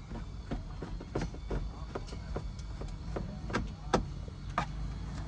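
Sharp, irregular clicks and taps of a screwdriver and hands on the truck's plastic dashboard trim, about three a second, the loudest a little before the end, over a steady low hum.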